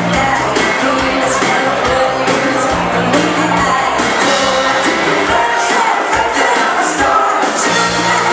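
Live dance band playing an up-tempo bugg tune in rock-and-roll style, with a singer over bass, drums and keyboard or guitar.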